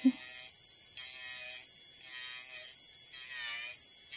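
Electric nail drill running with a barrel bit grinding gel polish off a fingernail, a steady high motor whine whose pitch wavers and dips about once a second as the bit works over the nail.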